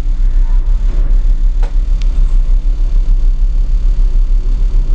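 A steady, loud low rumble with a hum, a motor or machine running in the background, with a faint click or two about two seconds in.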